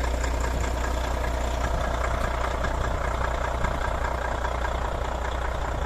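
Volvo truck's diesel engine idling steadily, a low even hum.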